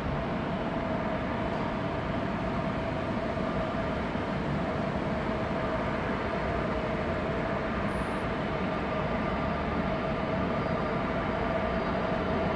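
Delta Airbus A330's turbofan engines at taxi idle as the jet taxis, a steady rumble with a whine held on one pitch, growing slightly louder near the end.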